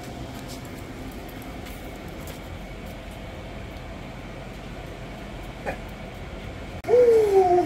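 A puppy gives a short yip about six seconds in, then near the end a louder whine that falls in pitch, over a steady background hum.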